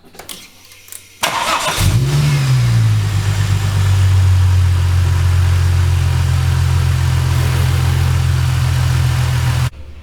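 Holden VY Commodore's supercharged 3.8-litre L67 V6 cranked over about a second in, catching with a brief rev flare and settling into a steady idle, running on freshly replaced drive-belt pulley bearings. The idle stops suddenly near the end.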